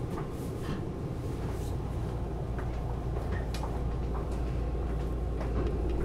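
Running noise of a Tobu 10000-series electric train heard inside its motor car while it rolls slowly: a steady low rumble with faint, scattered clicks and squeaks.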